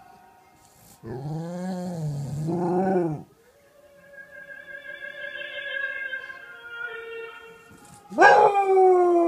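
A bulldog howling along to opera singing played through a television. There is a loud, low, wavering howl about a second in. A soprano's held note follows. Near the end comes a loud howl that slides down in pitch.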